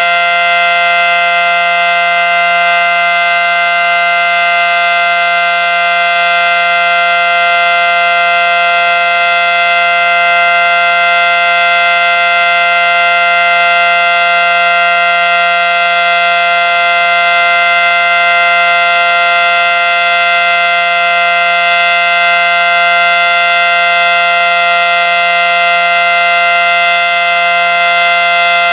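Federal Signal Model 5T outdoor warning siren sounding its steady full alert tone at close range: a loud, unbroken two-note chord with no rise or fall in pitch.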